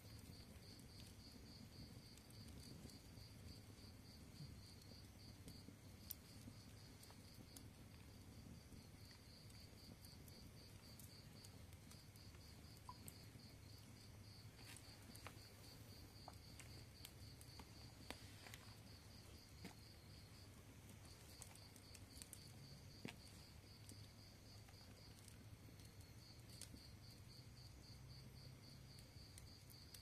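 A cricket chirps in long runs of rapid high pulses, broken by short pauses several times. Under it come the faint scattered crackles and pops of a burning wood fire.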